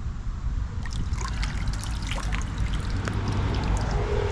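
Shallow creek water trickling and splashing, with many small sharp splashes starting about a second in, over a steady low rumble.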